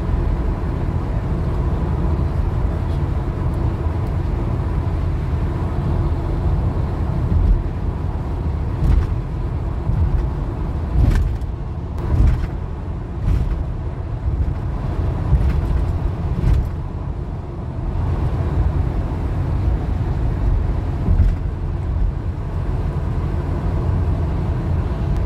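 Cabin noise of a car driving at highway speed: a steady low rumble of tyres on the road and engine hum. A few short thumps or knocks come between about a quarter and two thirds of the way through.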